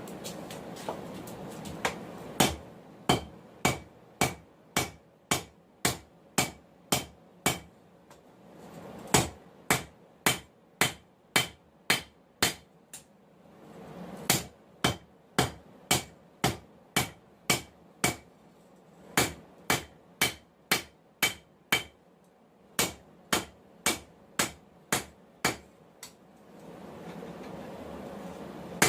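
Hammer blows on hot 1080 high-carbon steel over an anvil, forging a knife blank, in runs of about two ringing strikes a second. Between runs there are short pauses filled by a steady rushing noise.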